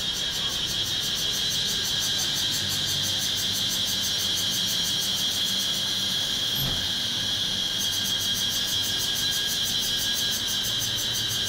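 Cicadas in a tree shrilling loudly and steadily, a high whine with a fast pulsing buzz above it that grows stronger about eight seconds in.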